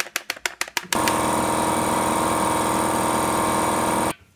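A run of quick clicks, about seven a second, then about a second in a power tool starts and runs steadily for about three seconds before cutting off abruptly.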